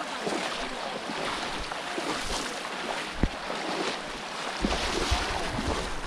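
Shallow water splashing and sloshing as many people wade through a flooded wetland and plunge bamboo polo fish traps into it, with a sharp knock about three seconds in. Near the end a low rumble of wind on the microphone joins in.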